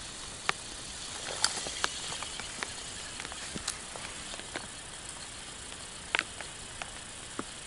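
Steady outdoor hiss with scattered sharp ticks and taps at irregular moments, the loudest about one and a half seconds in and again about six seconds in.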